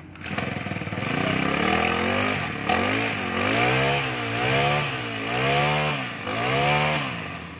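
Yamakoyo PG435 four-stroke brush cutter engine running. There is one sharp click shortly before it is revved up and down four times in a row, and it drops back toward idle near the end. The engine is test-running on its stand.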